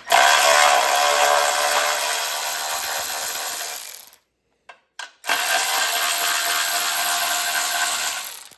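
Handheld power driver spinning out the bolts that hold the recoil starter on a Predator 212 engine, in two runs of about four and three seconds with a short pause between.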